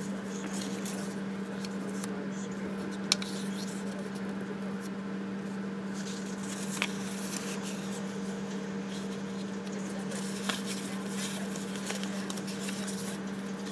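Soft rustling and sliding of cut paper pieces being handled and laid onto planner pages, with three light clicks spread through, over a steady low hum.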